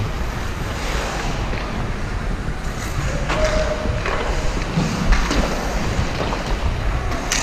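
Ice skate blades scraping and gliding on the ice during a pickup hockey shift, with wind rushing over the microphone and a few sharp knocks.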